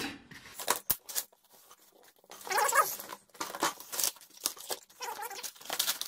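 Cardboard and packing tape being cut and torn open with a box cutter, in short irregular rips and scrapes with sharp clicks. From about halfway in, brief high, wavering squeaky sounds are mixed in.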